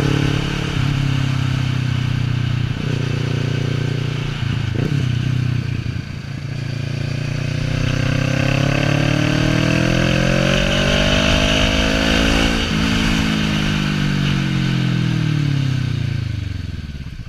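Motorcycle engine running under way with wind rushing past: steady for the first few seconds, then rising in pitch as the bike accelerates, and falling again from about twelve seconds in as it slows.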